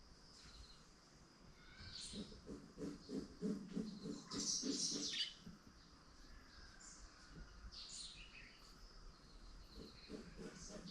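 Small birds chirping and twittering in short, high gliding calls, busiest about four seconds in. Under them, a lower call pulses about four times a second for a few seconds, then comes back near the end.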